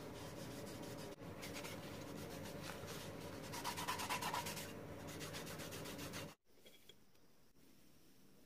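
Rubbing and brushing against a wooden box as a small brush and gloved hands work stain into the oak, over a steady low hum. It cuts off abruptly about six seconds in, leaving faint room tone.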